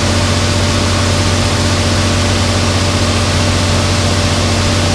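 An engine idling steadily, a constant unchanging hum.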